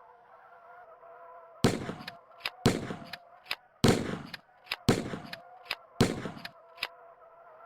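A series of sharp bangs: five loud ones about a second apart, each with a short fading tail, and fainter clicks between them. A steady high-pitched hum runs underneath.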